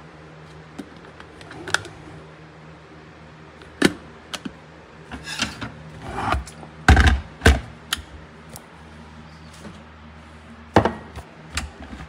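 Clicks, knocks and clunks of a plastic electric kettle being handled and moved on a countertop, with two heavier thumps a little past the middle, over a steady low hum.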